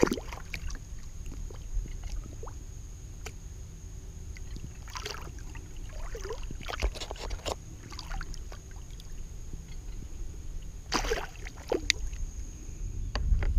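Water splashing and sloshing beside a kayak as a hooked fish thrashes at the surface, in several short bursts, over a steady low rumble on the camera microphone.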